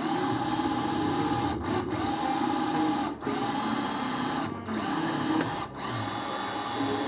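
Electric power drill running with a steady whine, briefly letting off about four times as it bores through to break in.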